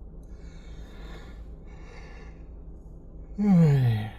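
A man yawning: two long drawn breaths, then a loud voiced exhale that falls steadily in pitch near the end.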